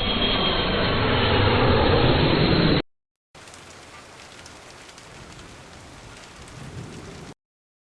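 Thunderstorm sound effect: a loud rumble of thunder that cuts off abruptly about three seconds in, followed after a short gap by quieter steady rain.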